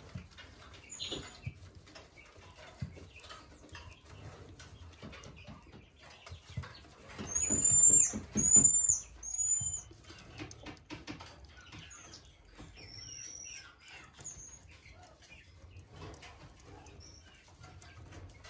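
A marmoset giving short, very high-pitched chirping calls: three loud arched chirps in quick succession about halfway through, and fainter ones now and then before and after.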